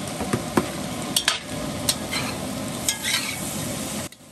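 Chopped onions and bell peppers sizzling in hot oil in a cast-iron pot of browned doves, with a metal spoon clinking and scraping against the pot as they are stirred in. The sizzle cuts off suddenly near the end.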